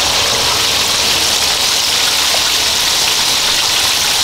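Steady hissing from a wok of broth-and-flour sauce cooking on an outdoor propane burner, even and unbroken.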